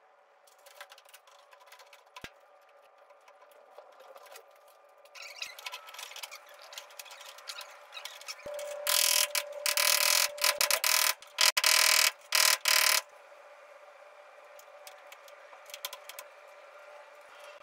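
Small clicks and knocks of metal and plastic parts as a new fuel pump assembly is fitted into the fuel tank opening. About halfway through come several seconds of loud rushing noise in bursts, stopping and starting.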